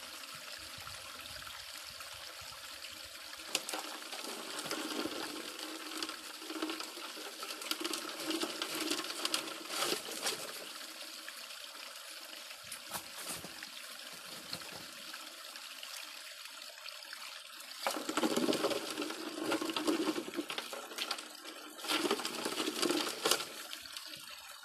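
Water gushing through a 6-inch highbanker's hopper and sluice as gravel is washed through it, with many small clicks and clatters of stones. Two louder splashing surges come near the end.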